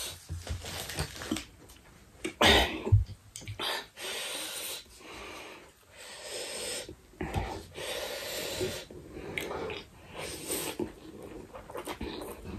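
Slurping and chewing of spicy instant ramen noodles eaten with chopsticks, mixed with sniffs and heavy breaths from the chilli heat. A few sharp, louder bursts come about two and a half to three seconds in.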